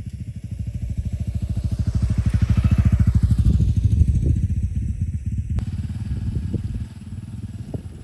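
A motor vehicle's engine passes by with a rapid, even pulsing. It grows louder over the first few seconds, then fades away.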